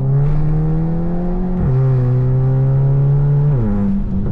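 Tuned 2017 Volkswagen GLI 2.0T turbo four-cylinder under hard acceleration: engine speed climbs, drops sharply at a quick upshift about a second and a half in, climbs again, then falls away as the throttle is lifted near the end.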